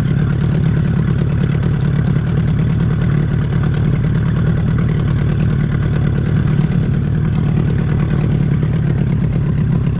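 Boat's outboard motor running steadily at slow trolling speed, a loud, even low hum.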